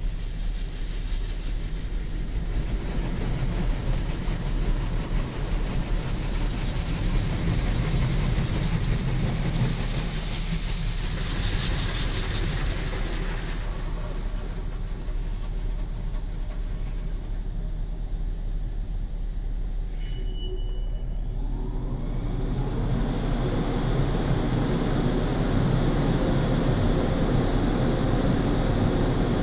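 Automatic car wash heard from inside the car: water spray and wash machinery running over the windshield over a steady low hum. About twenty seconds in, a short beep-like tone is followed by a rising whine, and the wash grows louder as the brushes come on.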